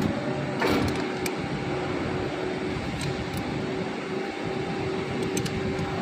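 Steady workshop hum with a constant tone, and a few light metallic clicks of a ring spanner on the timing-belt tensioner nut as it is tightened. The loudest click comes under a second in.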